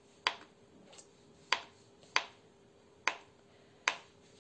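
Kitchen knife slicing through crab sticks and striking a wooden cutting board: five sharp knocks at uneven intervals, a little under a second apart.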